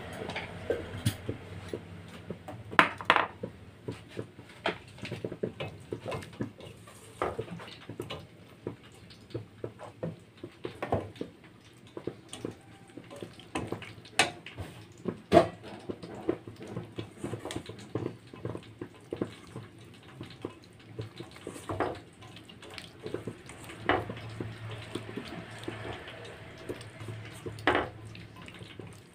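Spatula scraping and knocking against a stainless-steel wok while stirring broccoli and carrots, in irregular clatters with a few louder knocks.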